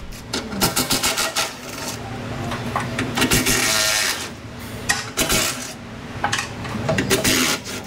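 Cordless ratchet backing out underbody bolts in short runs, with rapid clicking and metal rattles between them: a longer run about three seconds in and a shorter one near the end.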